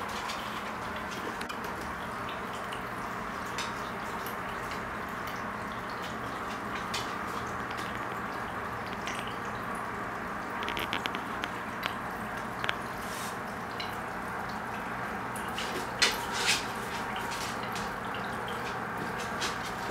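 Aquarium filter running: a steady trickle of moving water with a faint low hum, dotted with small drips and clicks, and two louder clicks near the end.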